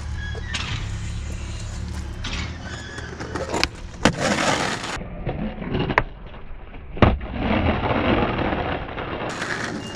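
Skateboard wheels rolling over rough, cracked concrete, broken by several sharp clacks and smacks of the board, the loudest about four and seven seconds in, as the skater pops off a drop-off and lands it.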